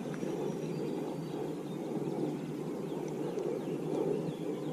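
Creek water running steadily, an even rushing wash, with a few faint, short, high chirps over it in the second half.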